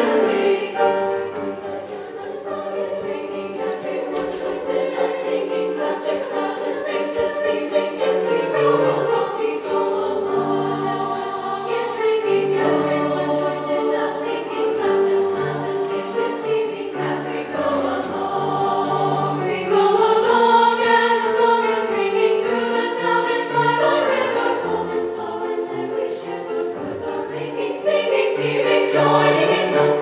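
Women's choir singing in harmony with piano accompaniment, swelling louder about two-thirds of the way through and again near the end.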